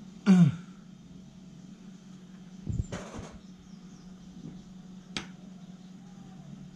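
Carburetor bank and tools handled on a wooden workbench: a clunk about three seconds in and a sharp click near five seconds. Just after the start there is a short, loud sound that falls steeply in pitch. A steady low hum runs underneath.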